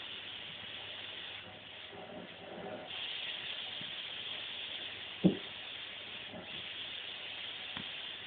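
Vacuum cleaner running, a steady high hiss that drops back about a second and a half in and returns louder about three seconds in. A single sharp thump a little after five seconds in.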